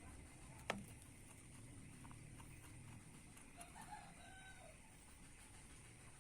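Near silence, broken by a single sharp tap under a second in. About halfway through comes a faint pitched animal call lasting about a second.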